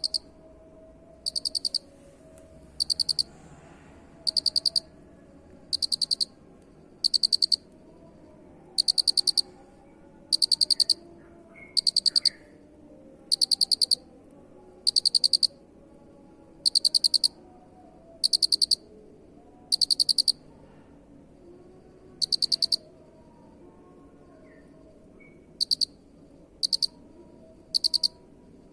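Cricket chirping: short high-pitched chirps, each a quick run of rapid pulses lasting about half a second, repeating roughly every one and a half seconds, with one longer pause about three quarters of the way through.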